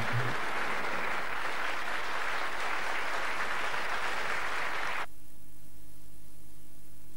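Audience applause, a dense steady clapping that cuts off abruptly about five seconds in, leaving only a low steady hum. The last notes of music end right at the start.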